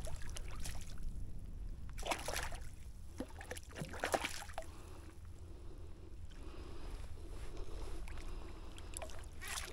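Hooked rainbow trout splashing and thrashing at the surface of shallow water as it is drawn in to be landed. There are a few separate splashes, about two seconds in, around four seconds in and again near the end, over a low steady rumble.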